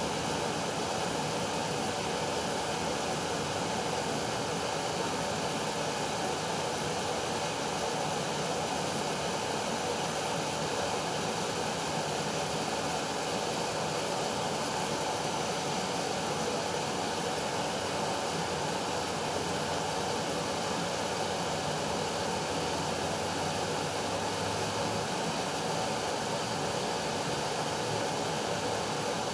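Steady, even rushing noise with no separate events.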